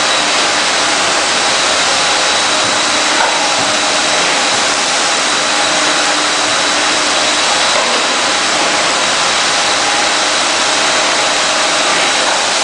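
Rug washing machine running: a steady, loud rushing noise with a thin, high, constant whine.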